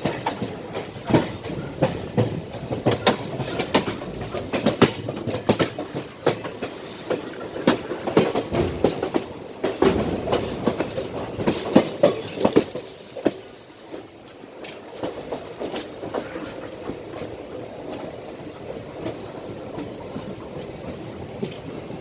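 A passenger train running, its wheels clattering over rail joints in a dense run of sharp clicks. About 13 seconds in it eases to a quieter, steadier rumble with only occasional clicks.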